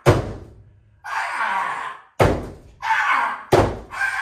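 Several loud thuds echoing in a small room: one right at the start and three more close together in the last two seconds.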